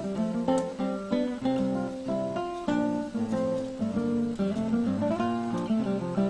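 Background music: acoustic guitar picking a melody with strummed chords.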